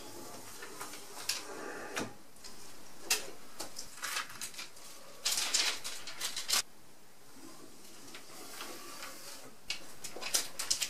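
Utility-knife blade trimming wet window tint film along the window frame: irregular short scratchy cuts and small clicks of the blade and guide card against the frame. The longest run of cutting strokes comes about five to six and a half seconds in.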